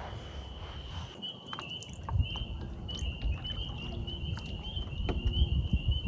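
A steady, high, slightly wavering trill from a small animal starts about a second in and keeps going, over a low rumble with scattered soft knocks and clicks.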